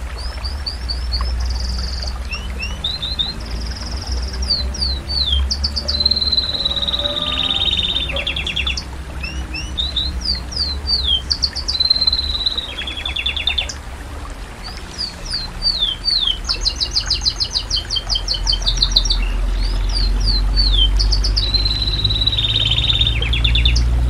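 Domestic canary singing a long, varied song of fast trills, rolls and short falling whistles with hardly a break, over a steady low rumble.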